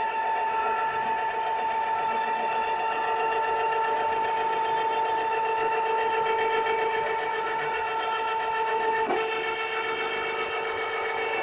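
SR8-1.74M planer-knife grinding machine running idle: the grinding head's electric motor and the carriage drive give a steady hum with a high whine as the head travels along the knife, the wheel raised clear for a trial run to check that it does not catch. The whine briefly wavers about nine seconds in.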